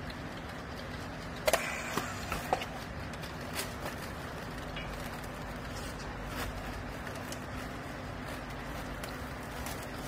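Steady hum of a used-clothes baler's hydraulic power unit, with a few sharp clicks and knocks about one and a half to two and a half seconds in as the bale is strapped with a handheld strapping tool and polypropylene strap.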